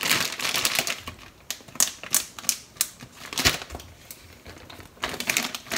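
Ziploc plastic zipper bag being pressed shut by hand: a string of sharp, irregular clicks as the zipper track seals. Plastic rustling follows near the end.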